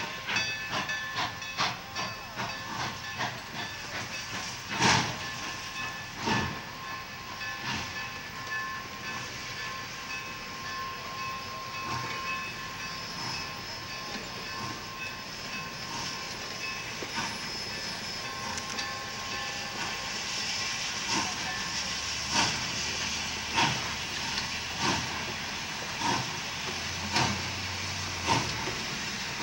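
Santa Fe 3751, a 4-8-4 steam locomotive, rolling slowly past with its heavy passenger cars. There is a steady rumble and hiss, with wheels clicking and clattering over the rails. In the last third, as the locomotive itself draws level, sharp beats come about every second and a quarter.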